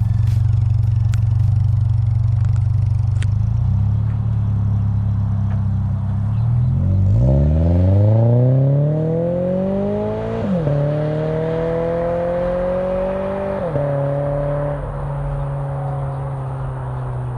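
Toyota GR86 flat-four engine through an aftermarket exhaust: a steady low drone, then about seven seconds in the car accelerates hard, its pitch climbing to an upshift near ten and a half seconds, climbing again to a second upshift about three seconds later, then easing off with slowly falling pitch.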